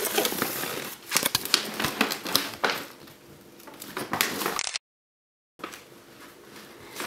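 Paper gift bag and tissue paper rustling and crinkling in irregular crackles as a toddler handles them, broken by a brief gap of silence a little before five seconds in.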